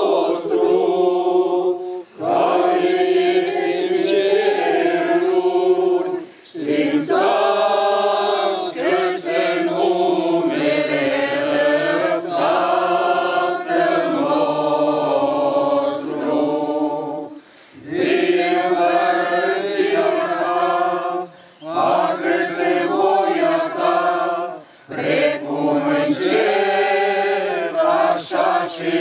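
A choir singing a slow chant in long phrases, with brief pauses between them.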